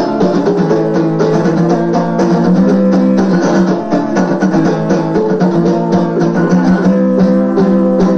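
Folk-punk band music, instrumental with no singing: loud, rhythmic guitar strumming.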